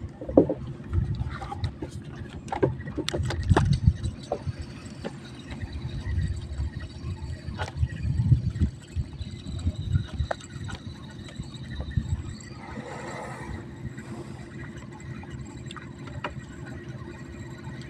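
Water sloshing and lapping against the side of a small drifting boat, in uneven low surges, with scattered sharp clicks and knocks.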